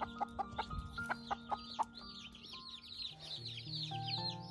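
Baby chicks peeping continuously in quick, high, falling cheeps. Several sharp taps come in the first two seconds.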